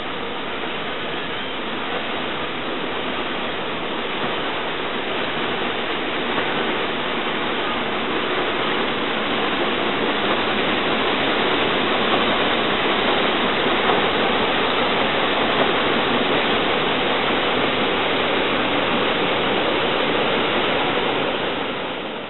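Paddle wheels of the 1914 Escher Wyss paddle steamer Stadt Rapperswil churning the lake water as it passes close by: a steady rushing that grows louder over the first half and then holds.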